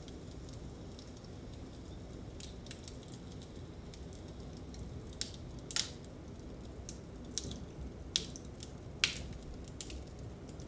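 Wood fire crackling in a fireplace, with scattered sharp pops over a steady low background noise; the loudest pops come about halfway through and twice near the end.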